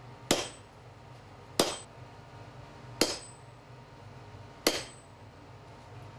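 Four hammer blows on a red-hot steel ice-pick blank lying on an anvil, roughly one and a half seconds apart, each a sharp clink with a short high ring: the shaft of the Yakut ice pick being straightened.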